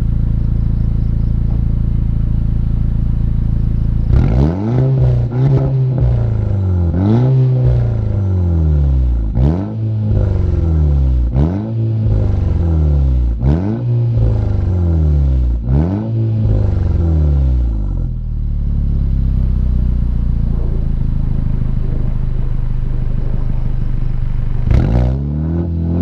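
Volkswagen Golf Mk6 GTI's 2.0-litre turbocharged four-cylinder, through a 3-inch cat-back exhaust, idles, then is revved about seven times, roughly every two seconds, with sharp pops and crackles from the exhaust as the revs drop. It settles back to idle, then snaps up again with a crack near the end.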